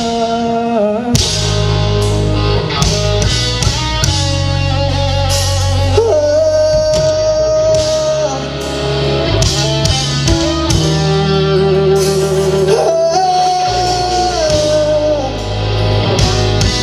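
Live rock band playing: electric guitars, bass and drum kit, with a melody of long held, wavering notes over a steady low end.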